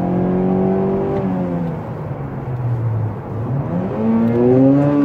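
Mazda car engine heard from inside the cabin at motorway speed: the engine note holds steady, sinks over a couple of seconds, then climbs steeply in the last second or so as a downshift into a low gear sends the revs high.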